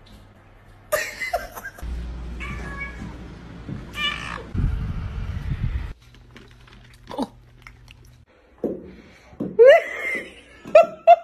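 Domestic cats meowing, several short calls, with a person laughing near the start.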